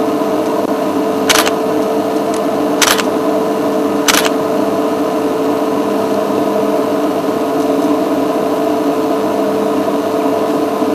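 A steady mechanical or electrical hum with several fixed tones, broken by three short sharp clicks in the first half.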